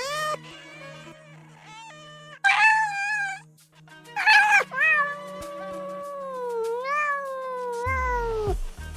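Domestic cats meowing one call after another: a few short meows, two loud ones, then one long drawn-out meow that dips, rises and falls away before stopping near the end. A steady low hum runs underneath.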